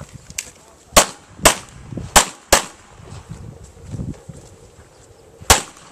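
Handgun shots from other shooters on the range: a faint crack, then four sharp cracks in the first two and a half seconds, and another near the end.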